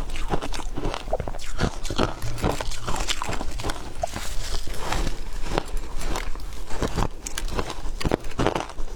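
Close-up crunching and chewing of frozen ice, a dense run of crisp cracks and crunches as the ice is bitten and broken between the teeth.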